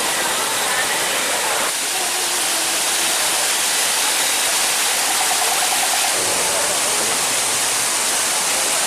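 Steady loud rushing noise with faint voices of people underneath; its character shifts abruptly about two seconds in and again about six seconds in.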